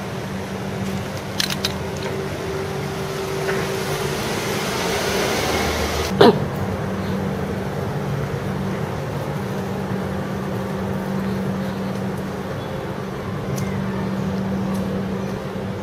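Steady mechanical hum with a low drone from outdoor air-conditioner units, broken about six seconds in by one sharp knock, with a few faint clicks near the end.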